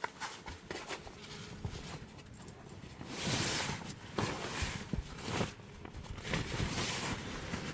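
Camping gear being handled and packed: irregular rustling and swishing with scattered clicks and knocks, the longest swish about three seconds in.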